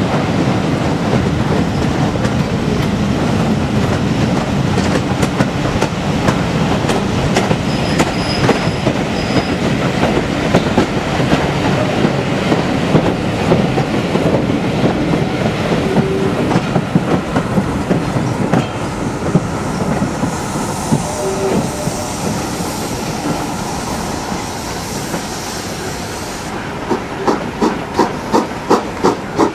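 Steam-hauled passenger train running on curving track, heard from inside a coach: a steady rumble and clatter of wheels over the rails, with a brief wheel squeal on the curve. Near the end the locomotive's exhaust beats come through plainly, about two a second.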